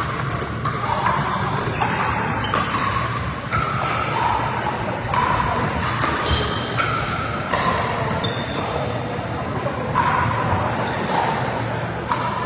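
Pickleball paddles striking the hollow plastic ball and the ball bouncing on a hard court floor: a run of sharp, ringing pocks at irregular intervals, about one or two a second, from several courts in play at once.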